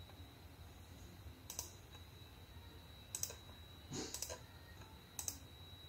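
Faint clicks of a laptop being operated, about five at irregular intervals, over a faint steady high-pitched whine.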